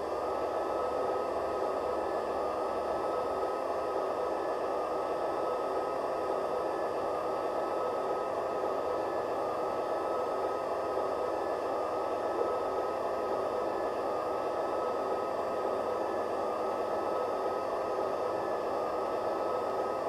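Model locomotive sound decoder (Massoth eMotion XLS in an LGB Ge 6/6 I 'Crocodile') playing the standing electric locomotive's running sound through the model's speaker: a steady whirring hiss with a high whine held level.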